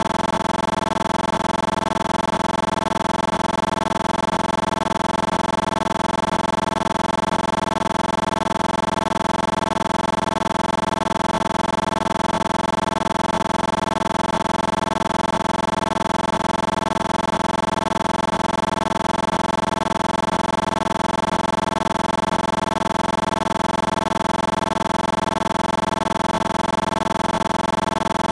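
A steady, unchanging hum made of several fixed pitches, loud and even throughout.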